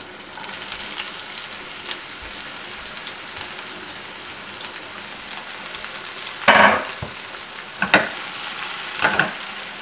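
Chopped red onion and garlic sizzling steadily in hot olive oil in a frying pan on high heat. Three louder scraping sounds come in the last few seconds as the pan is moved.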